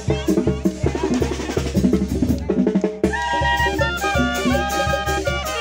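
Upbeat dance music with a steady drum beat; a melody of held notes comes in about halfway through.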